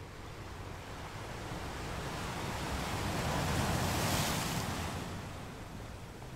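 Small surf breaking and washing up the sand at the waterline, swelling to a peak about four seconds in as a wave breaks close by, then easing off. A steady low rumble of wind on the microphone runs underneath.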